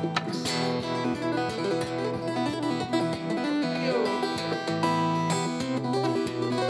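Background music: an instrumental passage led by guitar, with a steady beat.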